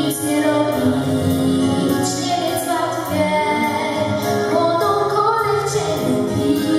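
A girl singing into a microphone, amplified over a loudspeaker, to instrumental accompaniment with a steady beat.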